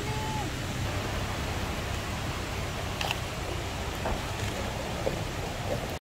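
Steady hiss of outdoor ambience, with a faint tick about three seconds in.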